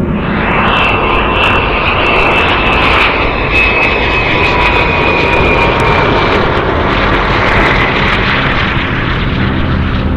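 General Atomics MQ-20 Avenger's turbofan jet engine running as the drone flies low past: a loud, steady roar with a thin high whine that slowly falls in pitch, and another whine near the end.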